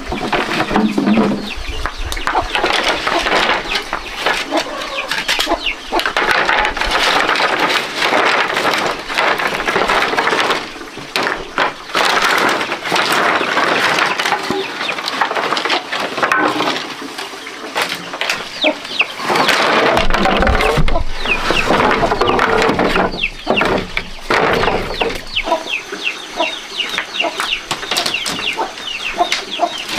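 Chickens clucking, with frequent sharp knocks and taps, and many quick high chirps in the last few seconds.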